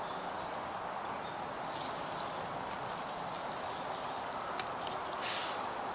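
Hot water pouring steadily from a small camping kettle into an instant udon cup. A couple of light clicks and a short hiss come near the end.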